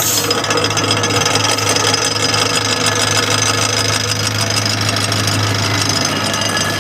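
Electric rickshaw wheel running with a steady, rough scraping grind over a low hum: a broken brake shoe rubbing inside the wheel.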